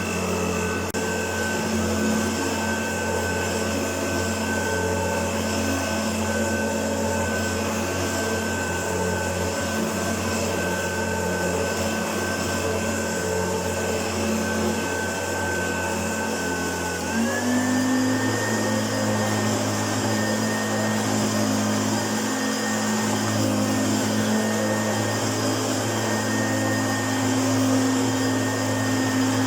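Hoover Turbopower U2332 upright vacuum cleaner running steadily. A little over halfway through, its motor pitch glides up and then holds at the higher speed.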